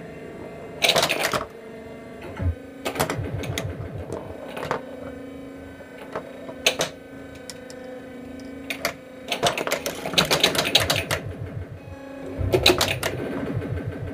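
1980 Williams Alien Poker pinball machine in play: repeated bursts of rapid mechanical clatter as the ball strikes pop bumpers and targets and the solenoids fire, over a steady low hum from the game.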